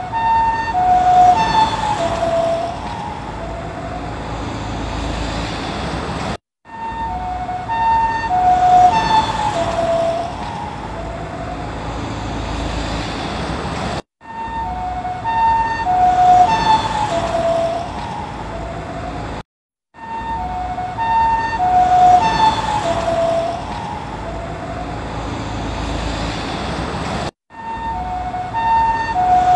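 Ambulance two-tone siren alternating high and low as it passes by, its pitch dropping as it goes past (the Doppler effect), over the hum of the vehicle and road. The same pass is looped, restarting about four times after a brief cut to silence.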